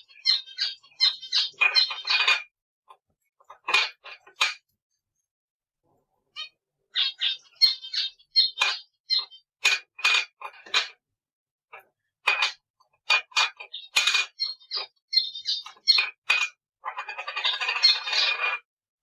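Cockatiel chirping in quick runs of short, high notes, in bursts with pauses between. Near the end comes a harsher, noisier call lasting about a second and a half.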